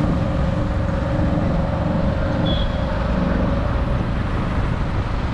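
Kawasaki Ninja 650's parallel-twin engine running steadily at a low cruising speed, with road noise.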